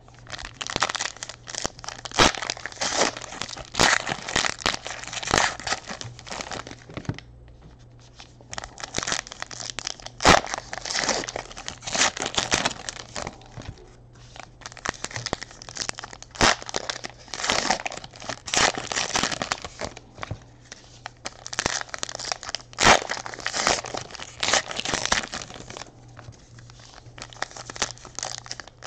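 Trading-card pack wrappers being torn open and crinkled by hand: irregular crackling and rustling, one pack after another.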